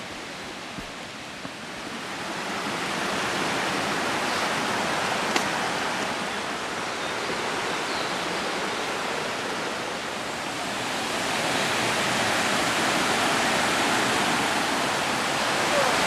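Duruitoarea waterfall's steady rush of falling water. It grows louder in two steps, about two seconds in and again after about eleven seconds.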